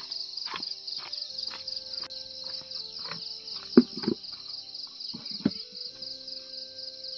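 Insects chirring steadily, a fast pulsing high-pitched chirp throughout, with scattered knocks, the loudest two close together about halfway through.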